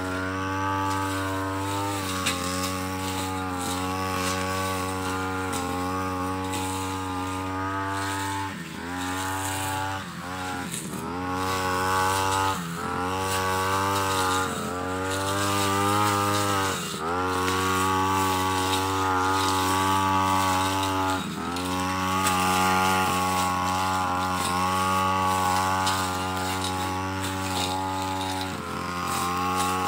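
Backpack brush cutter's small engine running at high speed, fitted with a metal blade cutting grass. Its pitch dips briefly and climbs back about six times.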